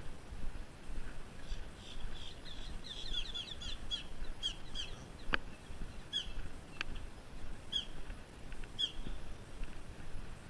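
Small birds chirping: a quick run of chirps a couple of seconds in, then single chirps about once a second, over footsteps on a concrete path. A sharp click about five seconds in.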